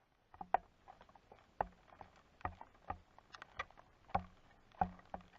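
Raindrops falling one by one onto a hard surface: an irregular scatter of sharp taps, a few a second.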